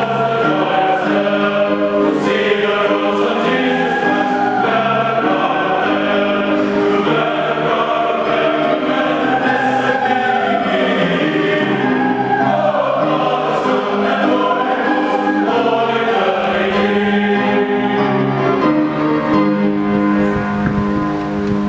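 Mixed choir of women's and men's voices singing a hymn-like piece in parts, moving through sustained chords and ending on a long held final chord.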